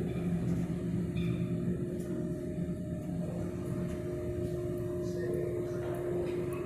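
Steady low drone of running machinery, a low rumble with a constant hum tone under it.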